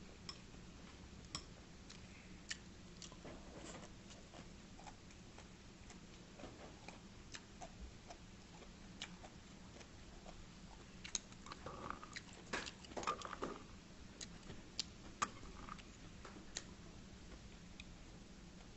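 Quiet eating: chewing of rice and side dishes, with scattered light clicks of chopsticks against bowls and plates, busiest a little past the middle.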